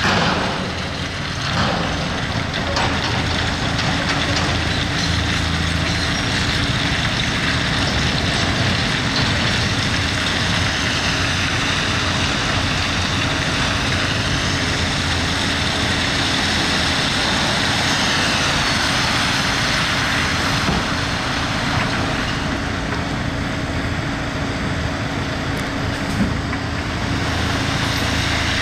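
Heavy diesel machinery running steadily under load, with a faint whine that rises and falls around the middle.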